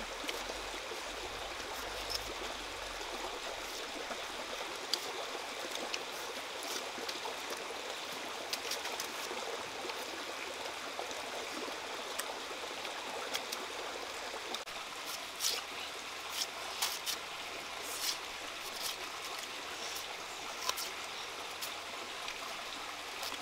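Steady rush of a flowing stream, with scattered sharp clicks and scrapes of a knife peeling the skin off jicama tubers, more of them in the second half.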